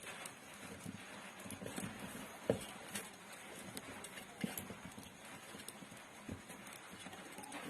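Scattered, irregular light knocks and clicks of coil winding wire being worked into the stator slots of a grinder motor during rewinding.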